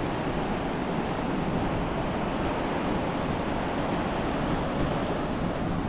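Steady rush of ocean surf breaking along the outer reef, mixed with a low rumble of wind on the microphone.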